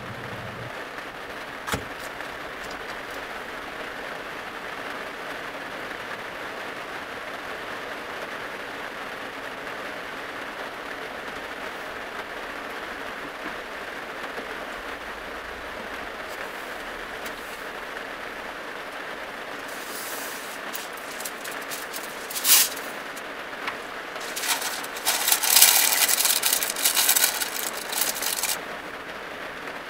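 Baking paper crinkling and rustling for several seconds as it is pressed into a ceramic pot, with a few shorter rustles before it. A steady hiss sits underneath.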